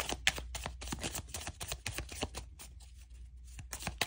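A tarot deck being shuffled by hand: a rapid, uneven run of clicks.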